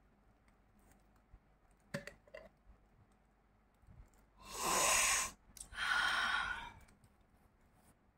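Two long, loud sniffs, one right after the other and each about a second long, taken close to the microphone. A light glass clink comes about two seconds in.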